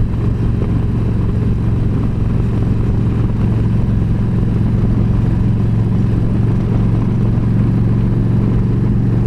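Yamaha V Star 1300's V-twin engine running steadily at cruising speed, heard from the rider's seat over steady road noise.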